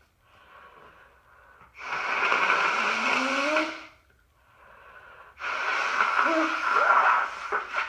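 A woman with a stuffed-up cold blowing her congested nose into a handkerchief: two long, thick blows of about two seconds each, with quieter breathing between them.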